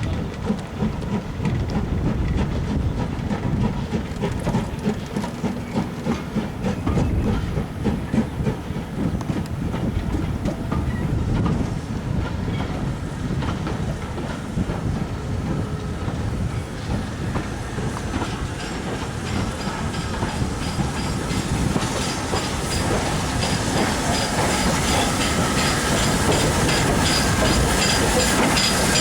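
A heritage train running on the line, wheels clicking over rail joints over a steady rumble. From about two-thirds of the way through, a hiss with thin high ringing tones builds up and gets louder to the end.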